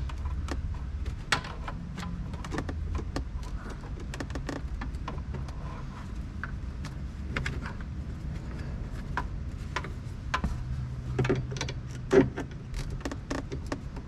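Scattered clicks, taps and light knocks of hand work with parts and wiring inside a vehicle, over a low steady rumble, with a sharper knock about twelve seconds in.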